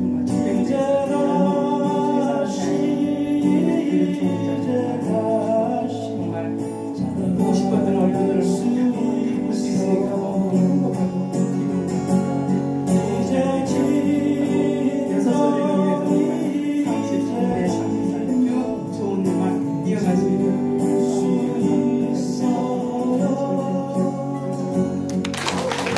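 A song with singing over instrumental accompaniment, steady throughout. A short noisy burst comes near the end.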